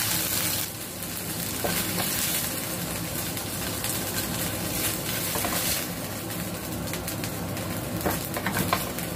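Chicken slices sizzling in a nonstick grill pan: a steady frying hiss, with a spatula scraping and tapping the pan a few times, most clearly near the end, as pieces are turned and lifted out.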